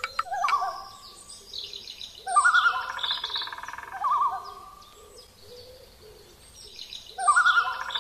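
Bird calls and chirps: a wavering, pulsing call with high twitters over it, the same sequence heard twice about five seconds apart.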